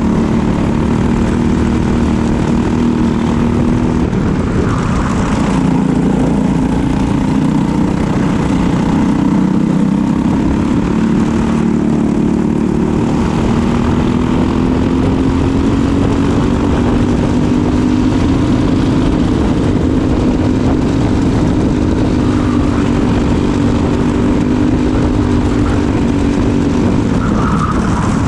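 Briggs & Stratton LO206 single-cylinder four-stroke kart engine running at racing speed, heard on board. Its pitch drops about four seconds in and again near the end, and climbs slowly in between as the kart brakes and accelerates around the track.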